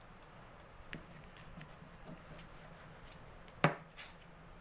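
Kitchen knife cutting raw pork chop meat away from the bone on a plastic cutting board: faint taps of the blade, with one sharp knock of the knife on the board about three and a half seconds in.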